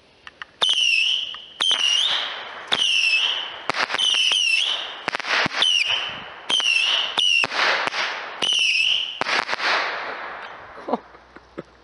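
Saturn missile firework battery firing a rapid string of small whistling rockets: about ten launches, each a sharp pop followed by a short warbling whistle that dips and rises. They start about half a second in and die away near the end.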